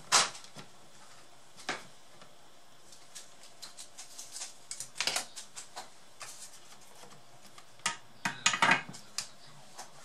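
Small hand tools clicking and clinking against a laptop motherboard and workbench as a soldering job on its power jack is finished: scattered sharp clicks, a loud one at the very start and a quick loud cluster near the end.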